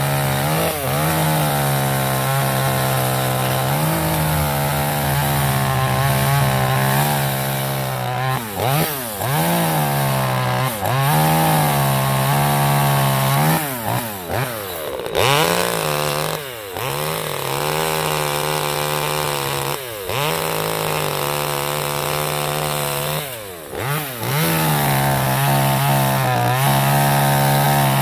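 Small 25cc two-stroke Chinese Stihl-clone chainsaw running at high revs while cutting through brush and branches. It drops back several times and revs up again between cuts. The saw is being broken in.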